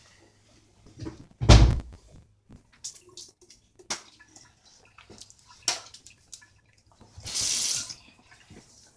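A heavy thump about a second and a half in, then scattered small knocks and clicks of things being handled at a bathroom sink, and a short hiss of tap water running near the end.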